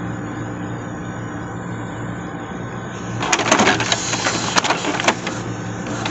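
Epson L360 inkjet printer starting a nozzle-check print. A low steady hum, then about three seconds in a clattering run of sharp clicks and mechanical noise as the print-head carriage leaves its parking station and moves across the rail.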